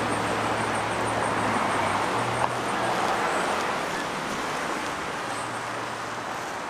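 Street traffic: a steady rush of passing cars with a low engine hum, slowly fading.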